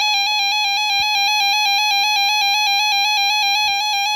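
RadioShack 12-262 weather alert radio sounding its alert test: a loud, steady electronic alarm tone from its speaker. A couple of faint handling knocks sit underneath.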